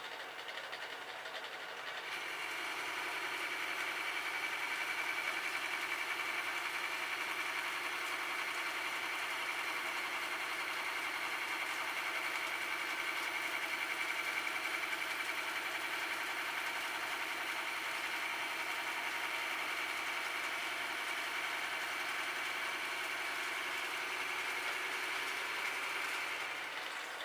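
Metal lathe taking a cutting pass on the inside of a worn concrete mixer part. The tool goes into the cut about two seconds in, adding a louder steady whine over the machine's running, and comes out of the cut just before the end.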